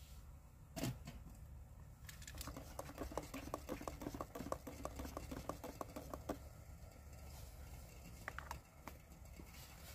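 Metal spoon stirring coffee in a metal tumbler, clinking rapidly against the sides about five times a second for about four seconds. A single knock comes about a second in, and a short ringing tap near the end.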